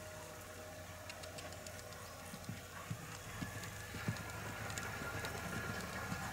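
A horse cantering on a sand arena, its hooves striking the sand in soft repeated footfalls that grow louder and clearer from about halfway through.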